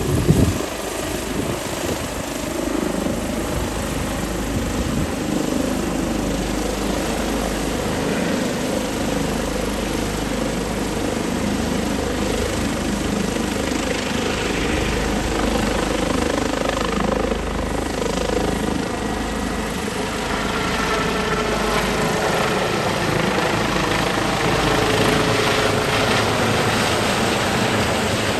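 Airbus H145 rescue helicopter running at full power, a steady dense rotor and twin-turbine noise, with a short thump just at the start.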